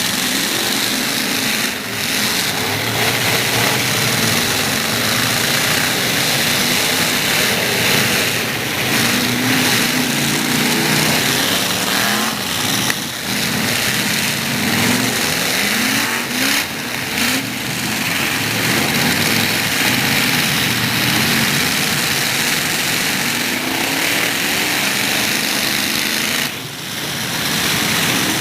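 Demolition-derby truck engines running hard and revving over a loud, dense din, their pitch rising and falling again and again.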